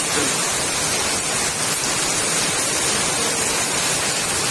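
Heavy rain pouring down, a loud steady hiss with no breaks.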